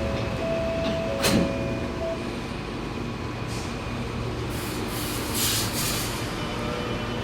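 Alstom Metropolis metro train standing at the platform with its doors just closed, ready to depart. Steady tones die away about two seconds in, with a sharp clunk a little after a second in and several bursts of hiss about five seconds in.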